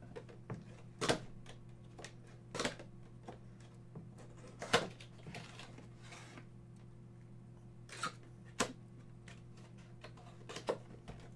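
A small cardboard box handled and opened by hand: scattered sharp clicks and taps of the card flaps and fingers, with a short soft rustle about halfway through as the foam toy inside is pushed out. A steady low hum runs underneath.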